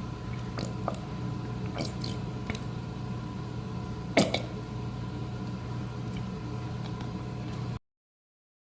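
Barbecue sauce being squeezed and poured from its bottle into a saucepan: a few short squelching splats, the loudest about four seconds in, over a steady background hum. The sound cuts off abruptly near the end.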